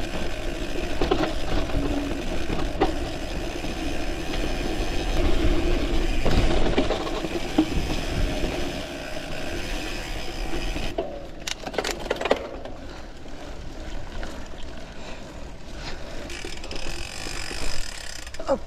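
Gravel bike being ridden on a trail: tyre noise, wind on the action-camera microphone and rattling from the bike. The sound drops and goes duller a little past the middle, with a few sharp clicks.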